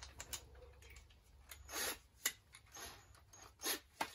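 A few irregular clicks and short scraping rattles of handling a cordless drill as the drill bit is changed in its chuck. The drill motor is not running.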